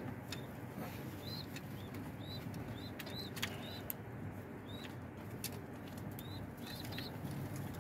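Two domestic pigeons fighting in a loft nest box: scattered sharp wing slaps and scuffles. A run of short, high chirps repeats through it.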